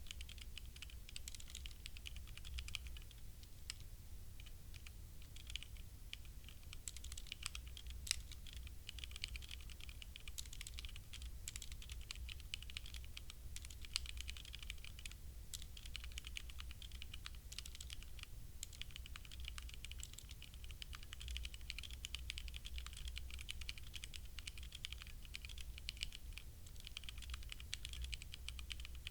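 Continuous typing on a HyperX Alloy Origins Core tenkeyless mechanical keyboard with linear HyperX Red switches: a rapid, irregular stream of key clicks and clacks, with a few harder keystrokes standing out, over a faint low hum.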